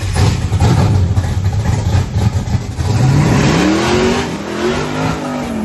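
Chevrolet ZZ632 big-block V8 in an OBS Chevy pickup running with a heavy, loud rumble. From about three seconds in it is revved up and down several times.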